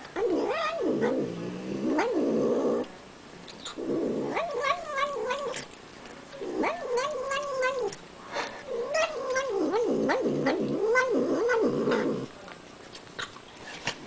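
Domestic cat making a warbling moan while it eats, its pitch wavering up and down several times a second. It comes in four long stretches of one to four seconds, with short clicks from its chewing in the pauses between.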